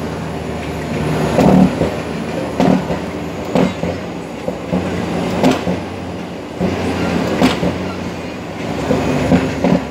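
International 9900i truck's diesel engine running steadily, heard from inside the cab while driving, with irregular knocks and rattles from the cab every second or two.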